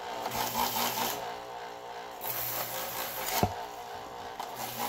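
Chef's Choice Trizor XV electric knife sharpener running with a steady hum while a kitchen knife blade is drawn quickly through its diamond honing slot. Each stroke is a rasping grind about a second long: three strokes, the last near the end, with a sharp click between the second and third. This is the final honing stage, putting a finished edge on the knife.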